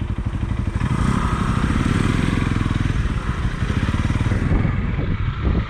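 Motorcycle engine running at low revs with a steady, even firing pulse, joined by a hiss from about a second in until near the end.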